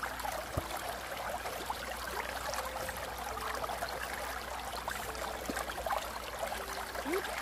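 Shallow stream running steadily over stones, with small splashes and dribbles as feet and hands move in the water.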